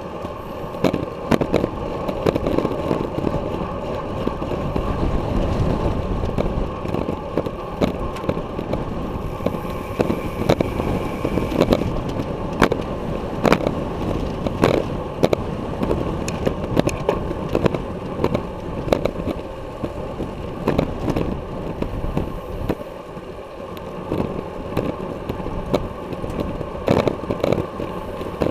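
Road bike rolling fast on concrete in a group of riders, heard through a bike-mounted action camera: a steady rumble of tyres and wind, broken by frequent sharp clicks and rattles.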